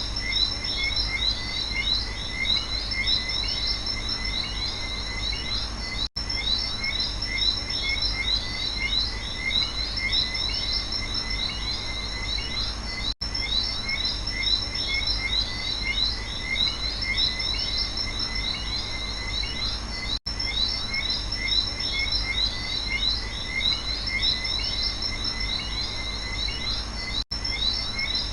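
Night rainforest chorus of frogs and insects: dense, rapid chirping with a steady high-pitched drone underneath. The sound cuts out for an instant about every seven seconds, where a short recording loops.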